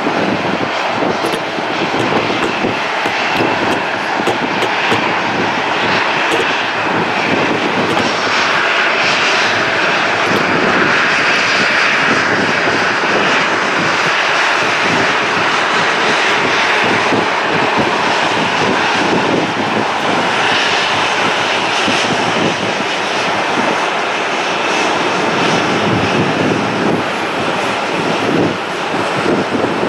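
Jet engines of a taxiing Boeing 737 running at low taxi power: a steady, loud engine noise.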